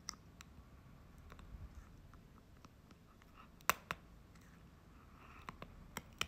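Caracal kitten sucking and chewing on its own paw: scattered faint wet mouth clicks, with two louder ones about halfway through and a few more near the end.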